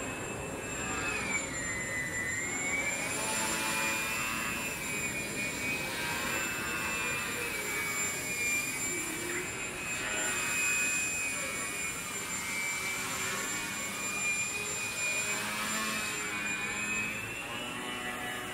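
Small electric RC foam plane's motor and propeller whining overhead, the pitch dipping about two seconds in, coming back up, and rising again near the end.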